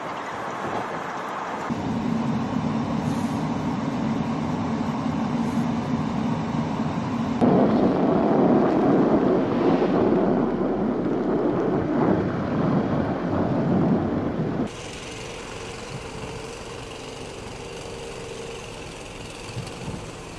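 Steady rushing noise of blizzard wind and road traffic, changing abruptly in level and character about 2, 7 and 15 seconds in, loudest between about 7 and 15 seconds.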